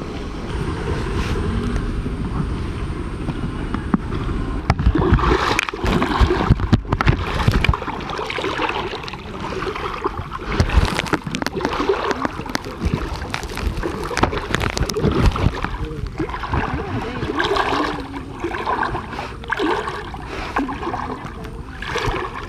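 Water splashing and sloshing, over a heavy rumble of wind on the microphone.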